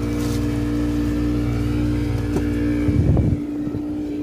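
A fishing boat's inboard engine running steadily at an even speed. About three seconds in there is a brief loud low thump or rumble.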